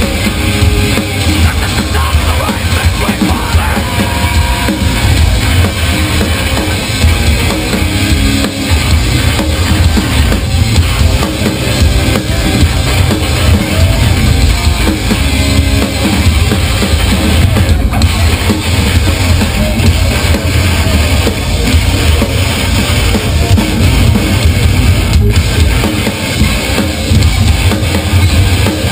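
Hardcore band playing live at full volume: a driving drum kit with heavy bass drum under a dense wall of band sound, captured from the crowd.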